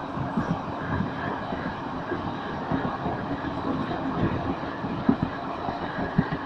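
Indian Railways passenger coach running along the line, heard from its side: a steady rumble and rattle of wheels on the rails, with two sharper knocks about five and six seconds in.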